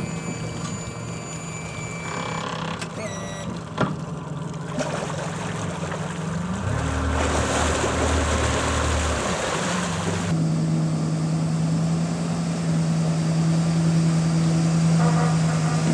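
Yamaha 150 outboard running at idle, then throttled up for about three seconds from roughly six and a half seconds in, with water churning, to power the boat onto its trailer. After about ten seconds a steady pickup truck engine takes over, pulling the loaded trailer up the ramp.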